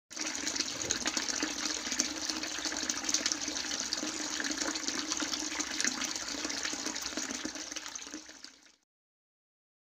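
Steady splashing and trickling of water, with many small drip-like ticks through it, fading out near the end.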